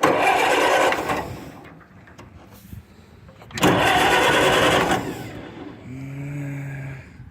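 Massey-Harris 22 tractor engine being cranked over cold in two bursts of about a second each, without catching: a no-start, which the owner puts down to a fuel line that has been getting shy. A short, fainter steady hum follows near the end.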